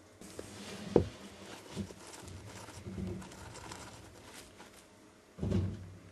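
Rustling and scratching in wood-shaving and hay bedding as a Campbell's dwarf hamster digs, broken by a sharp knock about a second in, smaller knocks, and a duller thump near the end.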